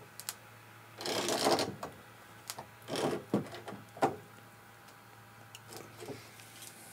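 Tongue-and-groove pliers gripping and turning the metal coupling nut of a washing machine hose onto a water hammer arrestor, tightening it about half to a full turn past hand tight. Three short scraping turns with small clicks between them.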